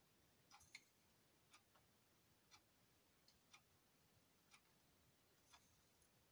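Near silence in a small room, with a clock ticking evenly about once a second and a few fainter clicks in between.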